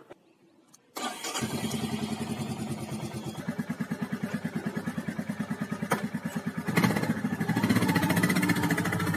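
Motorcycle engine started on the electric starter about a second in, catching at once and settling into an even, pulsing idle. It gets louder near the end, when the engine is given a little throttle.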